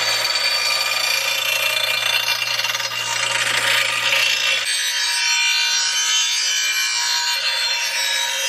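Clarke Metalworker 6-inch bench grinder grinding the edge of a steel lawn mower blade: a steady hiss of metal on the wheel with a high whine. The motor's low hum drops away about halfway through.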